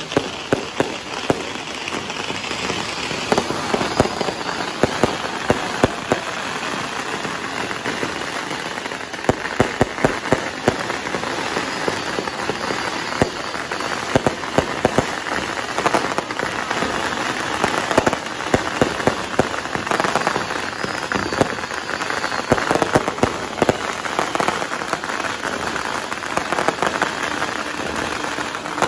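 Fireworks going off overhead: a dense, continuous crackling with many sharp pops, bunched into several loud clusters.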